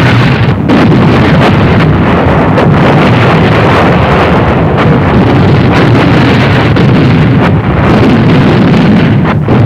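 Artillery and mortar barrage: a loud, continuous rumble of shell bursts running together.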